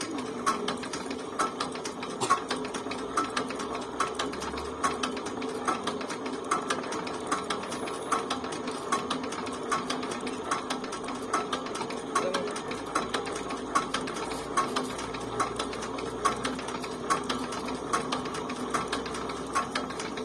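Single-cylinder diesel engine of a two-wheel tractor running steadily at idle, with a fast, even mechanical clatter and a sharper knock about once a second.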